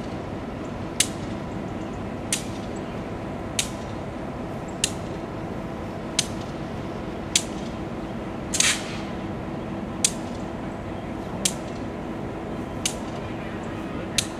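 EMD GP38 diesel-electric locomotive's 16-cylinder two-stroke engine idling with a steady hum, heard at a distance. Sharp ticks recur about every second and a quarter, with a short hiss about eight and a half seconds in.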